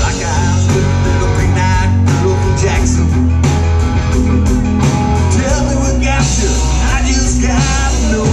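Live country-rock band playing amplified through a PA: acoustic and electric guitars over bass and drums, continuous and loud.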